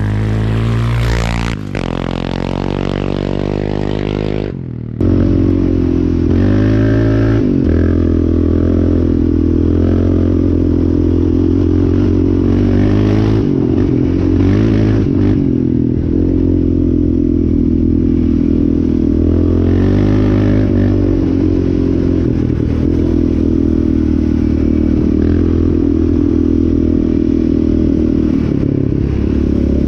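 Yamaha Raptor 700R quad's single-cylinder engine under way, revving up and down for the first few seconds. After a brief break it runs on at a steadier pitch.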